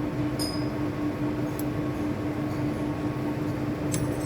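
Metal lathe running at its slowest speed with a knurling tool pressed into the turning workpiece: a steady machine hum with a few light metallic clicks.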